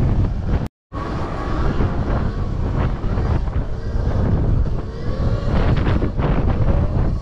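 Heavy wind buffeting on the microphone of an electric dirt bike riding at speed. A faint whine rises in pitch a few times, and the sound cuts out completely for a moment just under a second in.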